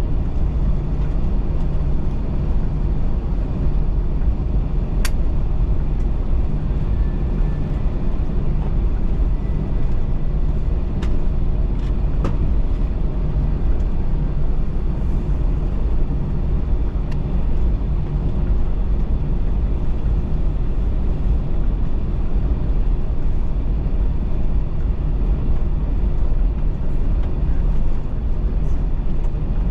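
Steady low rumble and hum inside the cabin of an Airbus A321-211 as it taxis with its CFM56 engines at idle. A few light clicks come in the first half.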